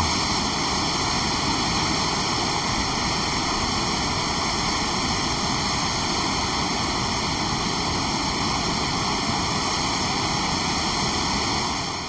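Waterfall rushing: a steady, even roar of falling water, fading out at the very end.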